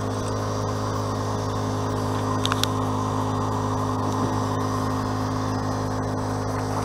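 A steady low hum with a buzzing edge, unchanging throughout, with a brief high chirp about two and a half seconds in.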